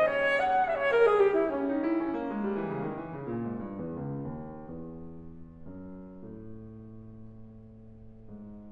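Alto saxophone and grand piano playing classical music: a descending passage that grows steadily quieter, settling into soft, held low notes.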